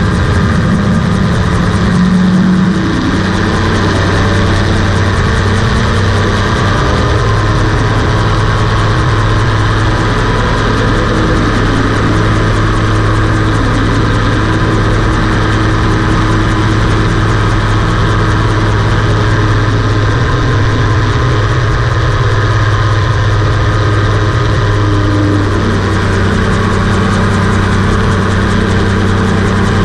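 Rotax 582 two-stroke engine and propeller of a home-built gyroplane running steadily at flight power, the note easing slightly about three seconds in.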